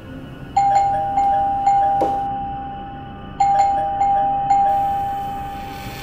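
Doorbell chime rung over and over, each press a two-note ding-dong, in two quick runs with a short pause between. A single thump comes about two seconds in.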